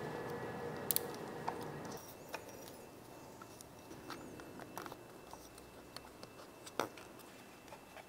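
Faint handling noise as hands fit a turn-signal light strip and its wiring at an e-bike's handlebar: light rustling and a few scattered sharp clicks, over a low hum that stops about two seconds in.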